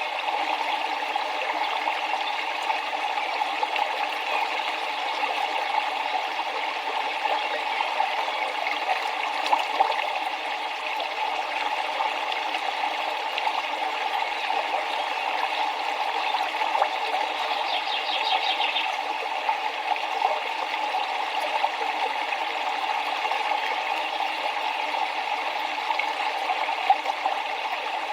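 River water flowing steadily, with a bird's brief rapid trill about two-thirds of the way through.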